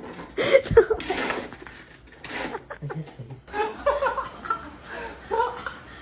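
A person laughing in several short bursts.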